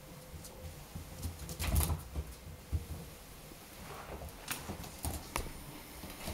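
A Shetland Sheepdog scuffling on a laminate floor as it pounces on a flat mop being pushed along: irregular scrapes and clicks of paws and mop head, the busiest scuffle about two seconds in and a few sharp clicks near the end.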